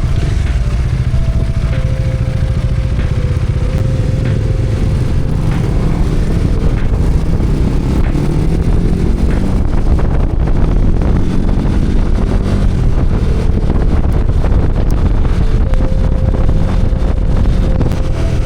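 Motorcycle engine running on the move, its note shifting up and down, under heavy wind noise on the action camera's microphone while riding in rain.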